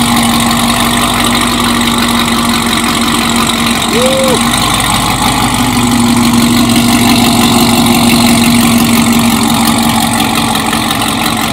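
Chevrolet Camaro ZL1's supercharged 6.2-litre V8, modified with a 750-horsepower performance package, idling steadily and loud through its quad-tip exhaust.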